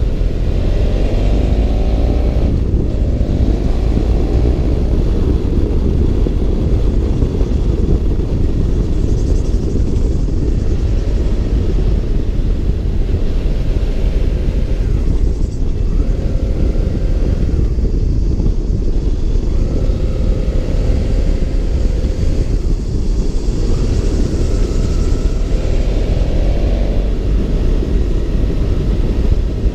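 BMW F650 GS Twin's parallel-twin engine running under way, with its note rising and falling several times as it accelerates and eases off, under a heavy low rumble.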